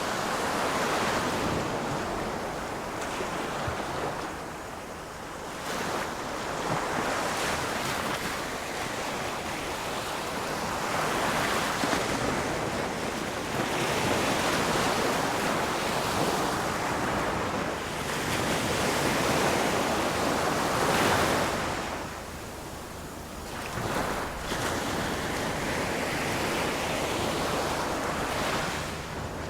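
Ocean surf breaking on a shore. The rushing wash of each wave swells and recedes every few seconds.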